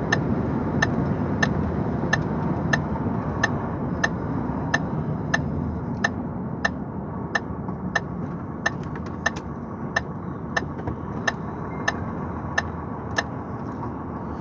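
Truck engine and road noise heard from inside the cab, with the turn-signal indicator ticking steadily about one and a half times a second; the ticking stops near the end.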